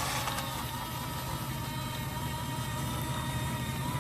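Electric motors of a radio-controlled construction model whining steadily, with a high tone held at one pitch over a low hum.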